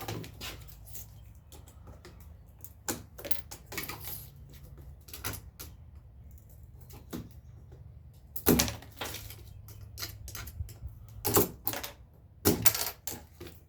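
Hand tools prying and tapping wooden window trim loose from a door: irregular sharp clicks and knocks, with the loudest clusters about two-thirds of the way in and near the end, over a low steady hum.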